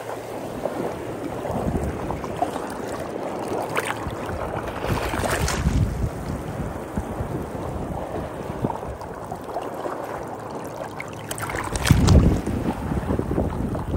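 Sea waves washing onto a beach, with wind buffeting the microphone. A wave surges about five seconds in, and a strong gust hits the microphone near the end.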